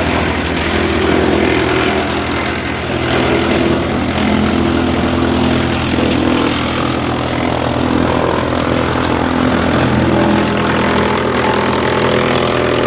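Vishwakarma wood chipper machine running steadily, a continuous mechanical drone whose pitch shifts slightly.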